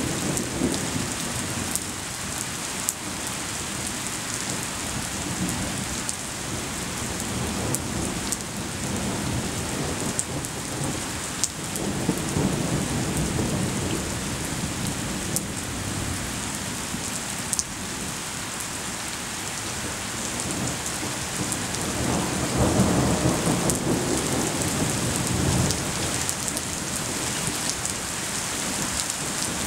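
Steady rain falling during a thunderstorm, with thunder rumbling in several rolls. The longest and loudest roll comes about two-thirds of the way through. Occasional sharp ticks sound over the rain.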